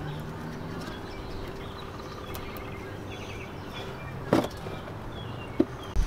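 Hands working at a truck's plastic wheel-well liner, with a sharp click about four seconds in and a lighter click a little later. Birds chirp and a faint steady hum runs under it.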